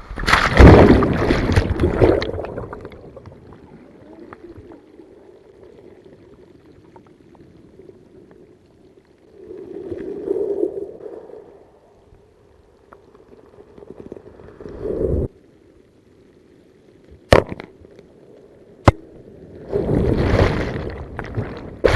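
Breaking surf washing over an inflatable kayak: a loud rush of water in the first couple of seconds, then quieter swirling and gurgling water. Further surges come about ten, fifteen and twenty seconds in, and two sharp knocks fall between them.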